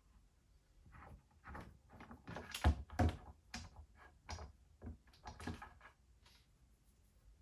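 A run of knocks and clunks as clamps and wooden parts are handled, loudest about three seconds in.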